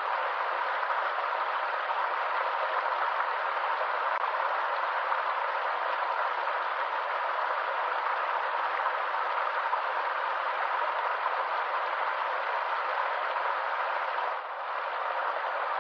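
Stream water rushing and splashing steadily over rocks, with a brief dip in level near the end.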